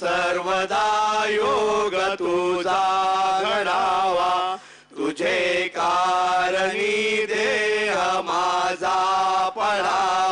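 A man chanting a Hindu devotional verse in long drawn-out notes that bend slowly in pitch, over a steady low hum; he breaks once for breath about five seconds in.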